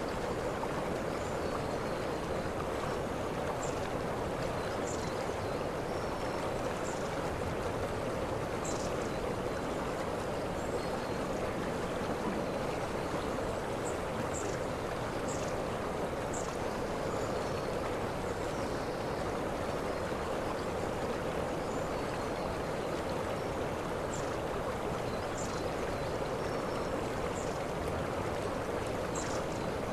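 Waterfall rushing steadily, with short high-pitched chirps at irregular intervals above the water.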